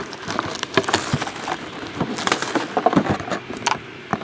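Cardboard box and its packing being opened and handled by hand: a string of small clicks and rustles, with a longer scraping sound about two seconds in.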